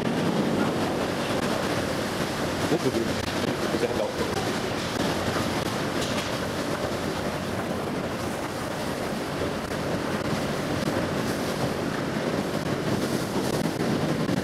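Long escalator running, a steady noisy hum from its moving steps and handrail, picked up by a camera riding on the handrail.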